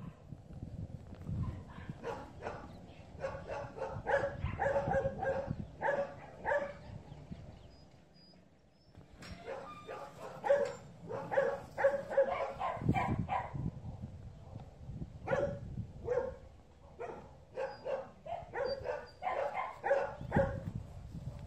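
A dog barking in rapid strings of short, high-pitched barks, a few a second, with a lull about eight seconds in; excited play barking.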